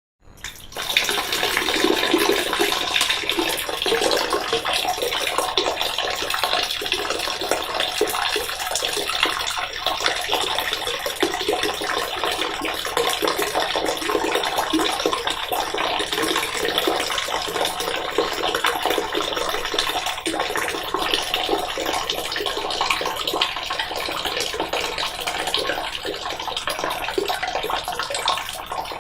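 A person urinating: a steady stream of liquid splashing into water. It starts abruptly about half a second in and holds on with little change.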